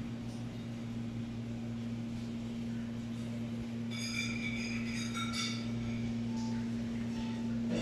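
Steady low hum of a running kitchen appliance. About four seconds in, a brief cluster of faint high tones comes and goes within two seconds.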